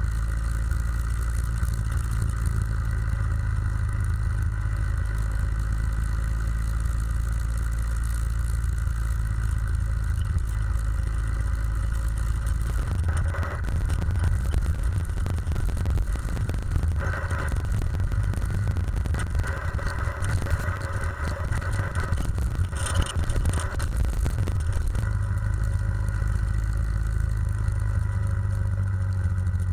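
Soviet M-62 sidecar motorcycle's flat-twin engine running under way on the road. Its note shifts and turns rougher about 13 seconds in, then steadies again near the end.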